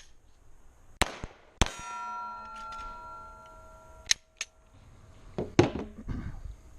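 A steel target plate clanging and ringing for about two seconds after being struck, with several sharp cracks before and after it.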